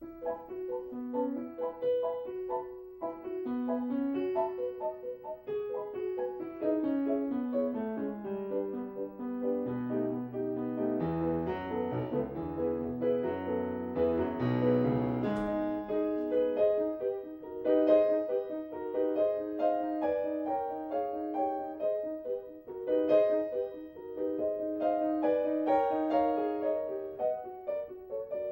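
Piano music starting suddenly: a melody of short notes, with low bass notes joining in the middle.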